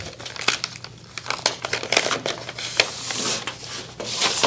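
Packaging crinkling and rustling, with scattered sharp crackles, as a brass kick plate is unwrapped and taken out of its package.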